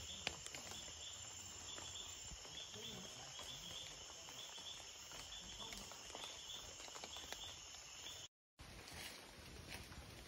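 Tropical forest insect chorus: a steady high buzz with a short chirp repeating about twice a second, over a faint background hiss. It drops out abruptly about eight seconds in and returns without the chirping.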